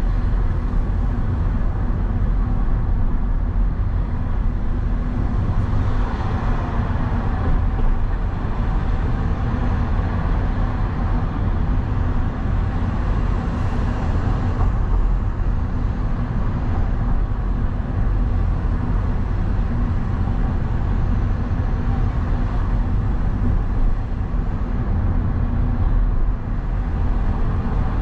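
A vehicle driving through city streets: a steady low engine and road rumble with surrounding traffic noise.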